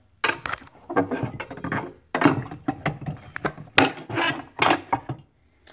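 A run of irregular clattering knocks and rattles, wood and metal parts of a homemade annealer's wooden cabinet being handled, stopping shortly before the end.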